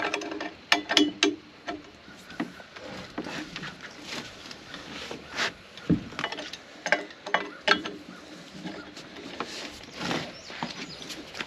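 Ratchet wrench clicking in short runs, with clinks and knocks of steel tools and parts, as bolts are worked loose on a bulldozer wheel.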